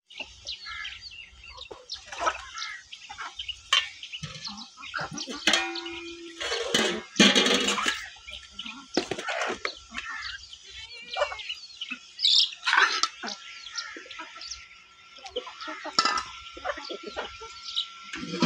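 Domestic chickens clucking and chicks cheeping, with short scattered calls throughout; a loud noisy burst comes about seven seconds in.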